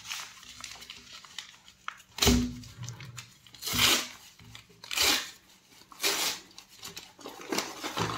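Brown paper mailer envelope being torn open and crinkled by hand, in about five separate rustling, tearing bursts; the first, about two seconds in, comes with a dull thump.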